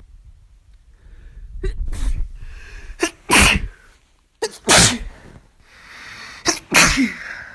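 A person sneezing three times in a row. A quick breath comes in before each loud, voiced sneeze, and the sneezes come about one and a half to two seconds apart.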